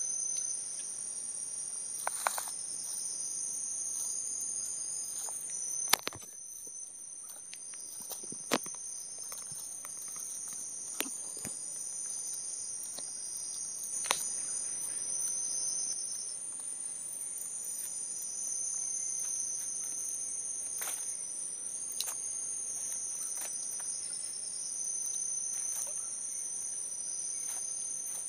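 Steady high-pitched chorus of forest insects, with a handful of sharp clicks or taps scattered through it, the loudest about six seconds in.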